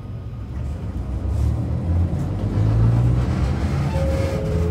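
Narrow-gauge electric train of the Sangi Railway Hokusei Line pulling away from a station, heard from inside the passenger car. A low rumble of motors and running gear grows louder as it gathers speed, with a brief steady tone near the end.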